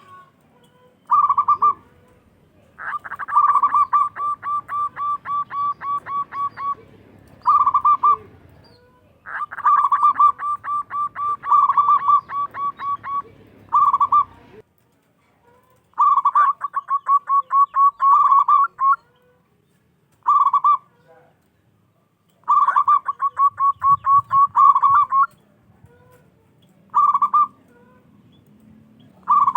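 Zebra dove (local perkutut) cooing. A short coo is followed by a rapid string of about a dozen staccato notes, and the phrase repeats four times.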